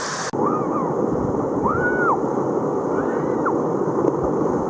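Waterfall pouring in a steady roar of rushing water. About a third of a second in, its high end drops out and it turns duller, and three short whistle-like tones rise and fall faintly above it.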